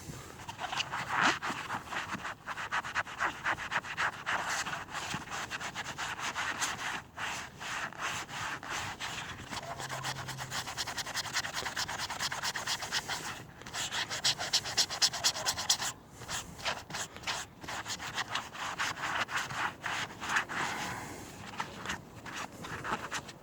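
Magic Eraser melamine sponge scrubbed on vinyl boat seating in quick back-and-forth strokes, a rasping rub broken by a few short pauses.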